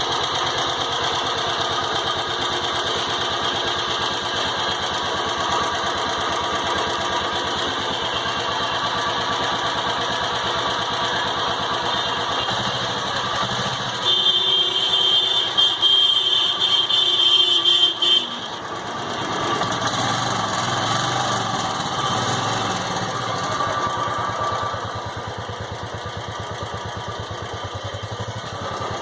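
Royal Enfield Classic 350's single-cylinder engine running through its original stock silencer, with a steady thumping exhaust beat. About halfway through it gets louder and uneven for a few seconds, then drops back and settles slightly quieter near the end.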